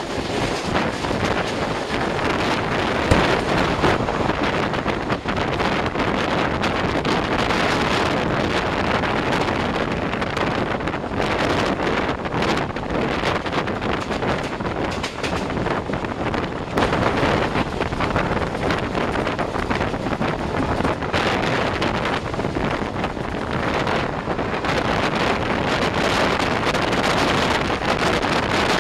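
Heavy wind buffeting on the microphone held out of a moving passenger train's coach, over the steady rushing noise of the train running. A single sharp knock about three seconds in.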